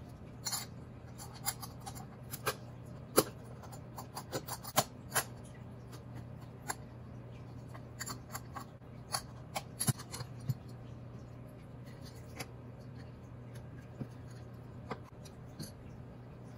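Small screwdriver clicking and scraping on the screws and aluminium heat sink of an LED aquarium light as it is taken apart, with tools tapped and set down on a rubber work mat. The clicks come at irregular intervals, the sharpest about three seconds in, over a faint steady low hum.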